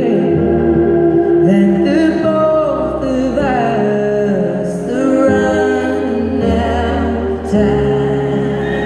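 Female lead singer performing a slow ballad live through an arena sound system, her voice gliding between held notes over sustained instrumental accompaniment.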